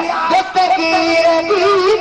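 A man singing a Sufi manqabat, a devotional song, in a drawn-out melody that wavers and bends in pitch over held instrumental notes.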